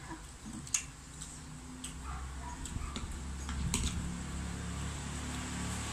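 Eating sounds: two people chewing bamboo shoot and pork with a scatter of short sharp clicks and mouth noises, over a steady low hum.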